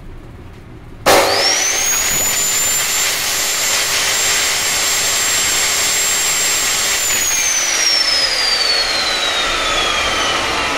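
Bosch GCO 220 14-inch metal cut-off machine switched on about a second in: its motor and abrasive wheel spin up quickly to a high, steady whine and run free with the blade raised. About seven seconds in it is switched off and winds down with a steadily falling whine.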